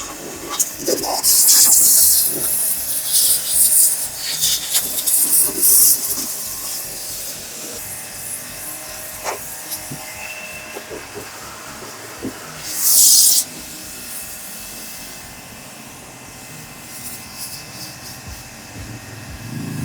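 Short hissing bursts of spray from a portable high-pressure car washer, several in the first few seconds and the loudest about 13 seconds in, with scattered light knocks between.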